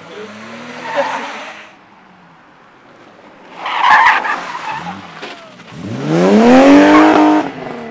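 BMW E30 325i rally cars passing on a loose-surface stage. A car's engine and tyres fade out at first, and after a short lull a loud burst of skidding tyres comes about four seconds in. Near the end a 2.5-litre straight-six is revved hard, rising steeply in pitch, as a car slides past, then cuts off suddenly.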